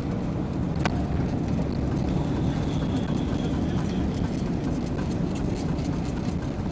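Steady low rumble of cabin noise inside an Airbus A380, with a single sharp click about a second in.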